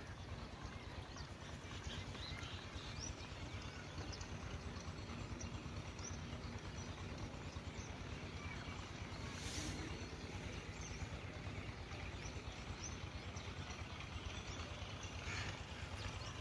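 Rural outdoor ambience: a steady low rumble with scattered small bird chirps, and a short hiss about halfway through.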